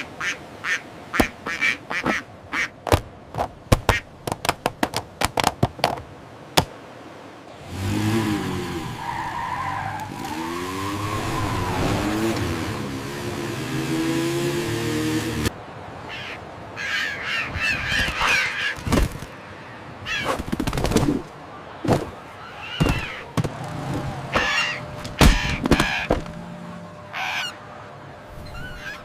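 Seagulls squawking in a string of short, harsh calls. A quick run of sharp clicks comes first, and a longer loud stretch of noise with wavering tones fills the middle.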